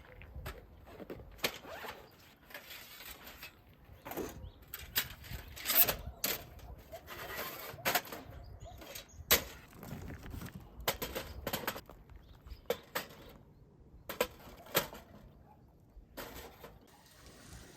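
A series of irregular sharp clicks and knocks.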